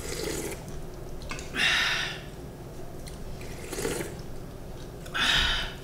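A person slurping soup from a spoon: two short slurps, one about a second and a half in and another near the end.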